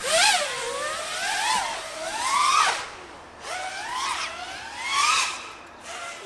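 FPV quadcopter's brushless motors whining, the pitch surging up and falling back about five times as the throttle is punched and eased, over a rushing hiss of air.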